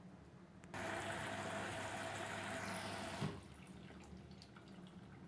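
TCL front-loading washing machine filling: water rushes through the open detergent drawer for about two and a half seconds, then cuts off suddenly with a thump as the inlet flow stops. A quieter water hiss follows.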